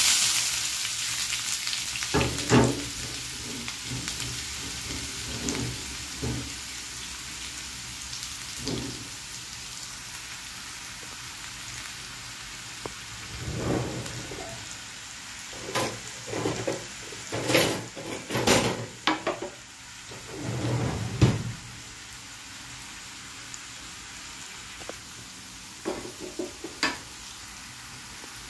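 Chopped onions dropped into hot oil in a non-stick frying pan, sizzling loudly at once and then frying with a steady sizzle. A cluster of louder knocks and crackles comes about halfway through, with a few more near the end.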